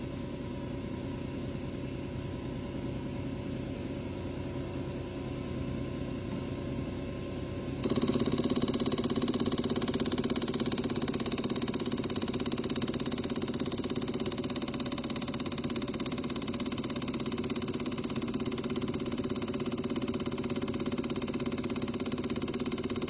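EPS 200 common-rail injector test bench running a new 1.6 TDI piezo injector through its full-load delivery test at about 1650 bar rail pressure. The machine gives a steady drone that steps up louder about eight seconds in, then holds steady.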